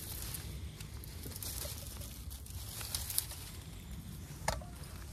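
Faint rustling and crackling of dry Jerusalem artichoke stems and soil as a clump of tubers is pulled up by hand. A few small snaps come about three seconds in and a sharper crack near the end.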